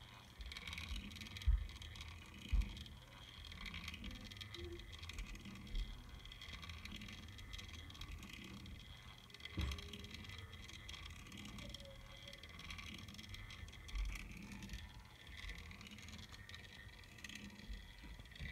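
Quiet room tone with camera handling noise: a faint steady hiss, broken by a few dull low bumps as the camera is moved along the rod.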